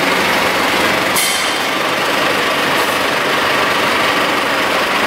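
Forklift engine running steadily.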